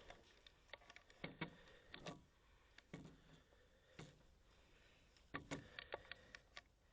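Near silence with faint, irregular clicks and taps scattered through it, a few bunched together about five and a half seconds in.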